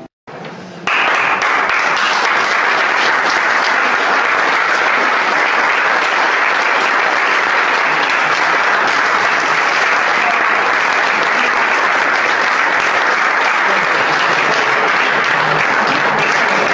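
Audience applauding, a dense steady clapping that starts about a second in and keeps up at full strength.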